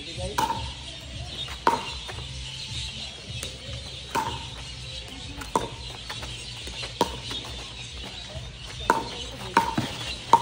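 Pickleball rally: paddles hitting the plastic ball, about eight sharp, hollow pops spaced roughly a second or two apart.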